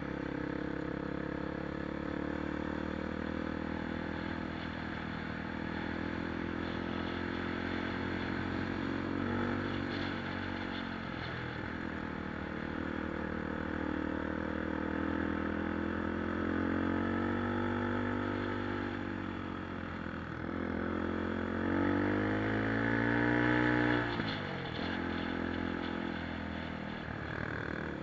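Small trail motorcycle's engine running while riding a gravel track, its pitch rising and falling with the throttle. Near the end it climbs for a couple of seconds and then drops sharply, as at a gear change.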